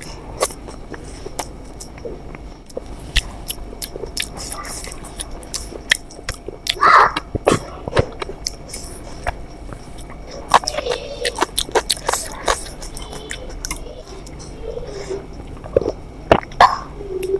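Close-miked eating: wet chewing and mouth clicks at an irregular pace, with a few short vocal noises from the eater.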